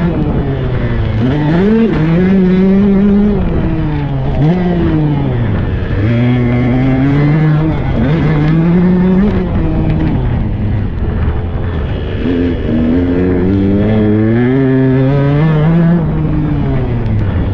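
Tuned Husqvarna 125 cc two-stroke dirt bike engine under hard throttle while riding. Its pitch climbs, then drops back at each gear change, over and over.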